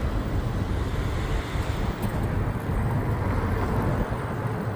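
Wind buffeting the microphone on a moving bicycle, a steady low rumble that rises and falls.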